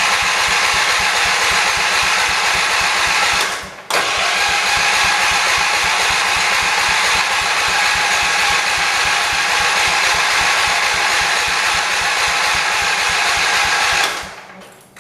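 John Deere 208 lawn tractor's single-cylinder Kohler engine being cranked over by its starter, choked, with an even chugging of compression strokes, but not firing. It cranks for a few seconds, pauses briefly, then cranks again for about ten seconds before stopping; the engine has compression but seems not to be getting fuel, perhaps a plugged carburettor jet.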